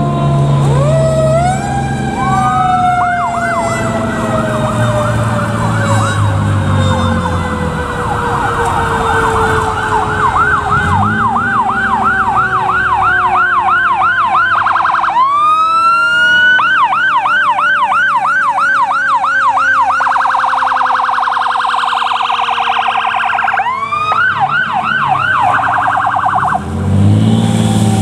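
Fire department aerial ladder truck responding with sirens: an electronic siren yelping fast, with a brief rising wail and a faster warble, over a mechanical siren that spins up at the start and then slowly winds down in pitch. Air horn blasts at the start and again, loudest, near the end.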